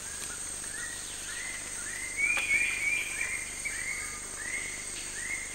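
Forest animal calls: a run of about ten short call notes, each rising then falling in pitch, at an even pace, over a steady high-pitched hum.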